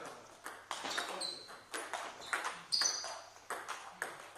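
Table tennis rally: the ball clicking back and forth off paddles and table in a quick irregular string of sharp knocks, with more ball clicks from other tables in the hall. Two short high squeaks come in about a second in and again near three seconds.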